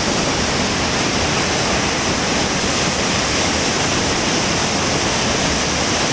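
Loud, steady rush of a waterfall, the white water pouring over the brink of a rock ledge and churning down between boulders, heard close at the lip.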